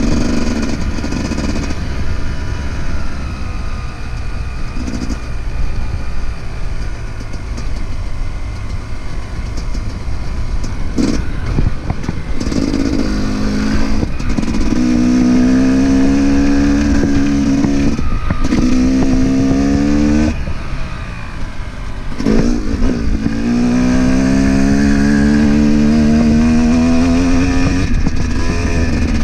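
Off-road dirt bike engine under way on a trail, its pitch climbing several times as the rider opens the throttle and pulls through the gears, with short drops where the throttle is shut or a gear is changed, and a long climb near the end. A heavy low rumble of wind buffeting the handlebar-mounted microphone runs underneath.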